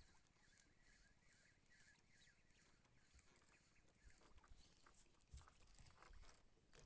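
Near silence: faint outdoor ambience with a few soft scattered clicks.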